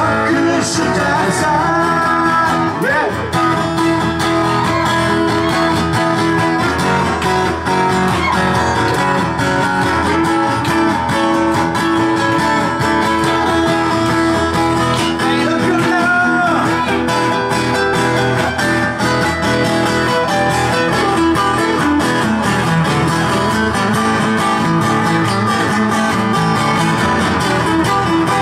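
Live music of strummed guitar with singing, playing without a break.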